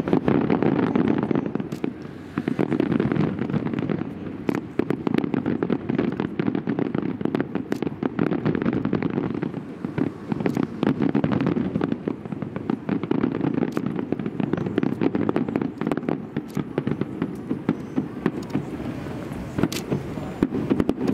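Fireworks display: shells and ground effects bursting in rapid succession, a dense run of pops and crackles over a continuous low rumble.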